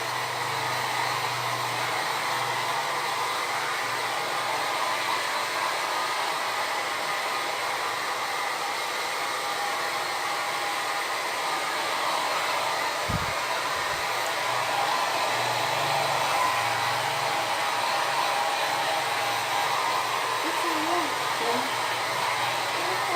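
Hand-held hair dryer blowing steadily while drying a child's hair.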